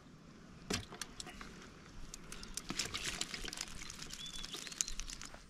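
Scattered light clicks, taps and rattles of hands handling a wire-framed yabby net, its mesh and its cord, as a yabby is taken out of it.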